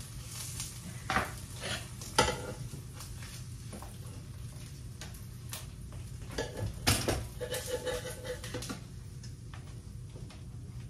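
Dishes and cutlery clinking and clattering: a sharp knock about a second in and another about two seconds in, then a run of clatters between about six and a half and nine seconds, over a steady low hum.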